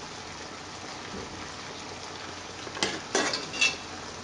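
Meat sauce sizzling steadily in a stainless steel pot. About three seconds in, a metal spoon clinks against the pot three times as pieces of meat are lifted out.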